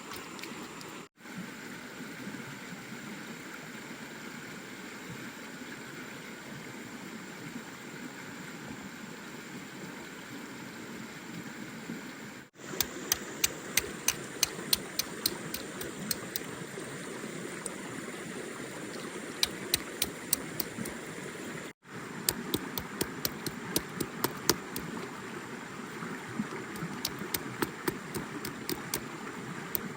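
Steady rush of running water. Partway through, sharp clicking taps come in runs over it, and these are the loudest sounds.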